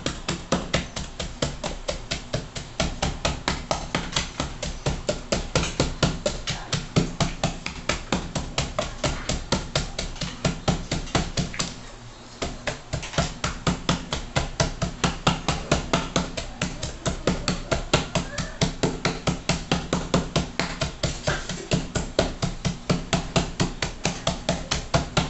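Wooden pestle pounding garlic, onion and seasonings in a small metal pot: steady, rhythmic thuds, about three to four a second, with a brief pause about twelve seconds in.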